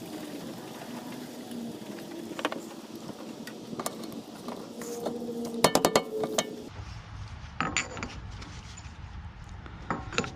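Metal clinks and knocks of hand tools against metal parts, scattered through, with a cluster of rapid sharp taps a little past halfway.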